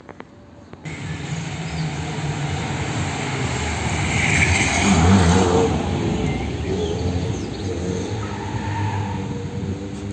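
A car driving past close by: engine and tyre noise building over a few seconds, loudest about five seconds in, then slowly fading.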